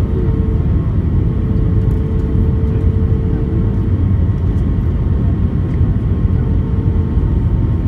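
Airbus A320 cabin noise on final approach, heard from inside beside the wing: a steady rumble of the engines and airflow over the extended flaps. A faint steady hum sits above it and fades out about halfway through.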